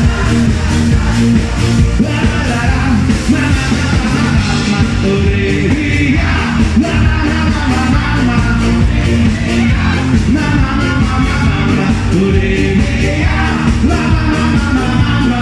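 Loud rock-style band music with singing, heard in a crowded tent.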